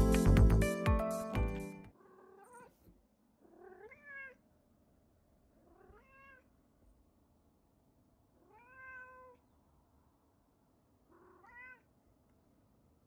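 Domestic white cat meowing five times, a couple of seconds apart, each meow rising and then falling in pitch, the fourth the longest: attention-seeking calls. Background music plays for the first two seconds and then cuts off.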